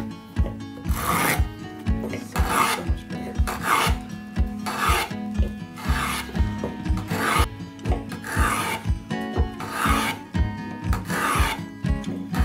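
Wooden molding plane cutting along the edge of a board in repeated strokes, each pass a rasping swish as the iron peels off a curled shaving. There are about ten strokes, a little over a second apart.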